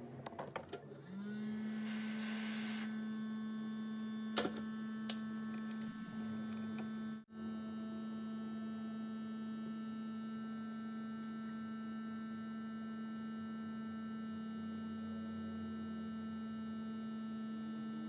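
A steady hum at one low pitch with many overtones, starting about a second in and holding on, with a brief dropout midway; a few sharp clicks and a short hiss come in the first few seconds.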